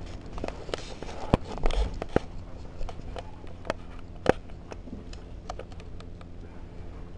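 Kittens eating wet cat food: irregular small clicks and smacks of chewing and lapping, with a few louder knocks in the first couple of seconds and one more a little after four seconds.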